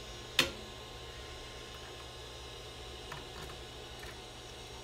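A threaded rod and its small parts being handled: one sharp click about half a second in, then a few faint ticks, over a steady low hum.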